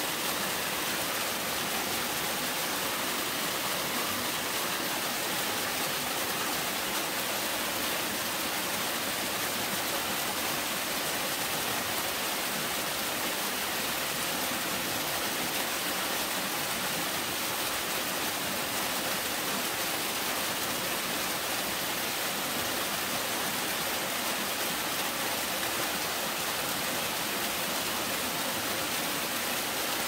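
A small sloping mountain-stream waterfall pouring down a rock chute between boulders: a steady, unbroken rush of falling water, mostly hiss with little deep rumble.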